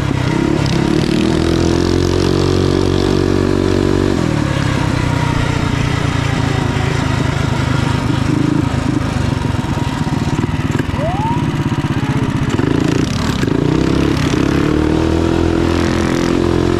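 Mini bike's small single-cylinder four-stroke engine running under throttle while ridden. It holds a high, steady pitch, drops off about four seconds in, and climbs back up under throttle about thirteen seconds in.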